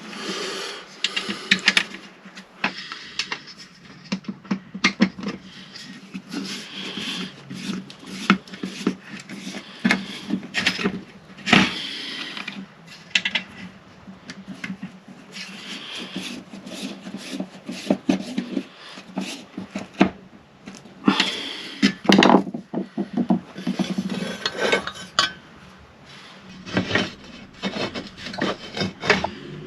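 Parts of a Kreg circular saw guide jig being handled and fitted together: irregular clicks, knocks and scraping as pieces are slid, set down and clamped.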